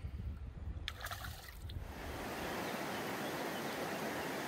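Shallow river water trickling over stones, under a low rumble and a short click about a second in. About two seconds in, this gives way to the steady, even rush of a fast mountain river running through rapids.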